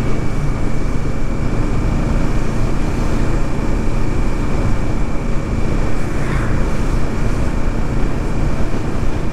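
Kawasaki Ninja 650's parallel-twin engine running steadily on the move, mixed with wind noise from riding.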